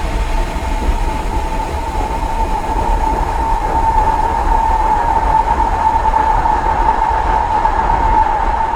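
Creepy industrial ambience: a continuous low rumble under a steady high whine that swells a little in the middle and eases near the end.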